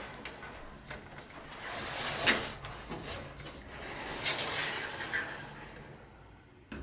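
Sliding wardrobe doors being pushed along their rails on their wheels: a rolling, rubbing rumble that swells twice, with a few light knocks.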